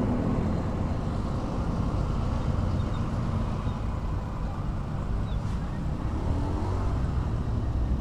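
Motorcycle engine running at low speed in slow, dense traffic, with a steady rumble from the surrounding vehicles.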